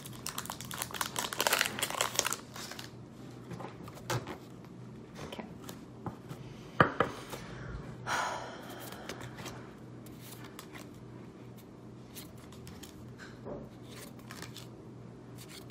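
Foil wrapper of a Magic: The Gathering booster pack crinkling and tearing open for the first couple of seconds, then trading cards being handled and slid through the hands, with one sharp tap about seven seconds in.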